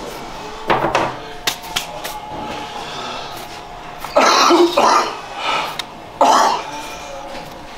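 A person coughing three times: two coughs close together about four seconds in, then one more about two seconds later.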